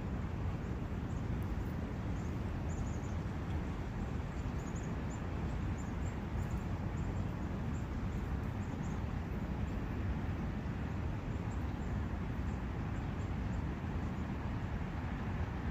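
Steady forest ambience: the even rush of a brook and wind, with faint, high bird chirps scattered through the first half.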